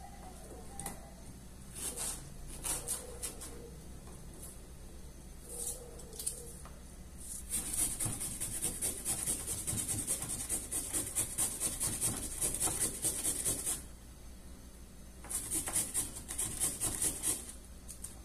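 A knife tapping on a plastic cutting board as red onion is chopped, then, from about seven seconds in, a handheld grater rasping a carrot in quick strokes, in two spells with a short pause between them.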